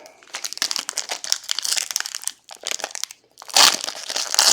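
Plastic trading-card packaging crinkling as it is handled and opened, in uneven stretches of crackle, loudest in the last second.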